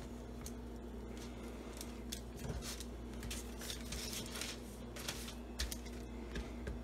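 Parchment paper crinkling and rustling as a rolled pie crust is unrolled and smoothed flat by hand, with scattered light clicks and taps. A steady low hum runs underneath.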